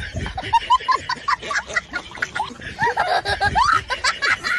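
A person laughing: quick, high-pitched laughs repeated several times a second.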